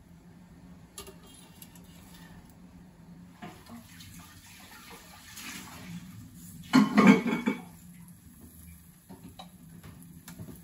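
A kitchen tap runs in one loud gush of about a second, past the middle. Under it, liquid bubbles and hisses faintly on the hot plate of an electric crepe maker.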